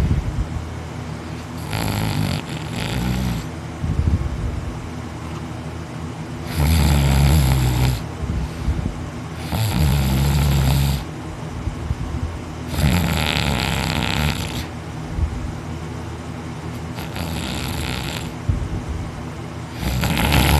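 A person snoring heavily while sleeping on his back with his mouth open. There is a snore about every three to four seconds, each lasting about a second, and the two in the middle are the loudest.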